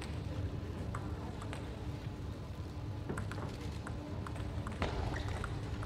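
Quiet table tennis hall between rallies: a steady low hum with scattered light taps and footsteps on the court floor, the sharpest tap about five seconds in.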